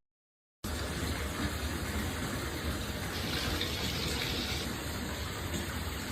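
After a brief moment of silence, a steady rushing noise without any clear tone or rhythm, brightening a little in the middle.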